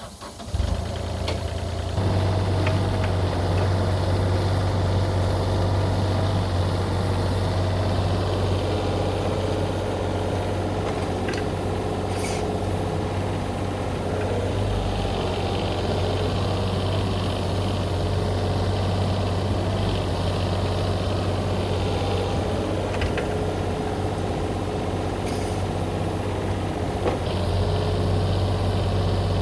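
Yanmar ViO35-6A mini excavator's diesel engine running steadily while digging. It rises to a higher, steady speed about two seconds in, with a few sharp clanks later on.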